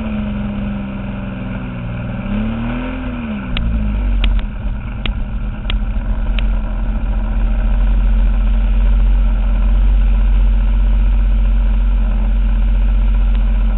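Engine of a giant-scale RC airplane running, its pitch rising and falling with the throttle. From about four seconds in, a heavy low rumble takes over, with a handful of sharp clicks.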